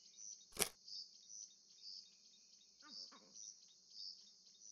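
Faint outdoor bush ambience: a steady high insect drone that pulses about twice a second, with thin bird chirps over it. A sharp click comes about half a second in, and a short, low, wavering call around three seconds in.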